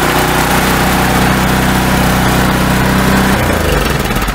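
Ariens snowblower's single-cylinder OHV LCT engine running at a steady speed just after starting, its carburetor freshly cleaned; about three and a half seconds in it slows and winds down.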